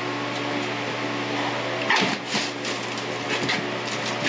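Rotted, water-damaged particle-board subfloor being broken and pulled up by hand in chunks, giving a few short cracks and crumbling scrapes about two seconds in and again near the end, over a steady low hum.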